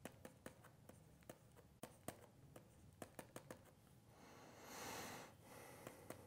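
Faint, irregular clicks and taps of a pen stylus on a writing tablet during handwriting, with a soft hiss swelling for about a second roughly four seconds in.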